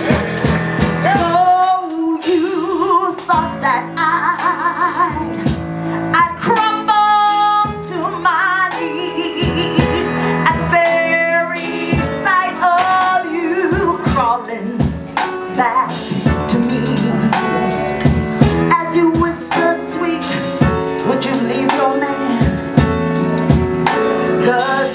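A live band playing: drum kit and guitar, with a melody line that wavers in pitch over the groove.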